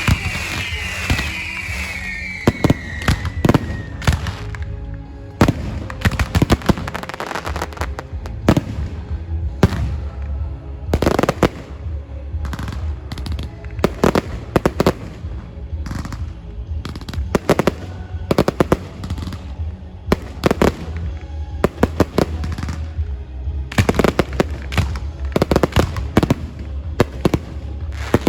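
Fireworks display: several whistling shells fall in pitch during the first few seconds, then a long run of sharp bangs follows, often several in quick succession.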